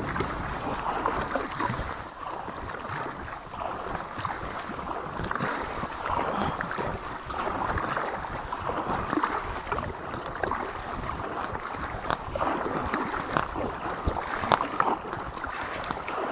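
Paddle strokes splashing water over and over as an inflatable kayak is paddled at full effort, the splashing surging and easing with each stroke.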